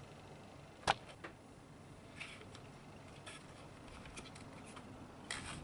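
Plastic wiring connectors being handled and unplugged inside a motorcycle headlight shell. There is one sharp click about a second in, then a few small ticks and faint rustles of wires and plastic.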